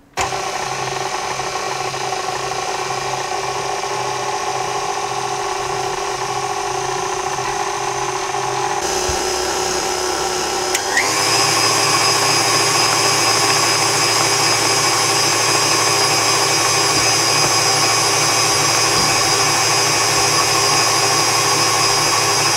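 KitchenAid Artisan stand mixer's motor running with its wire whip mixing flour into cake batter. It starts at a low speed and is turned up with a brief rise in pitch about eleven seconds in, running louder and steady from then on.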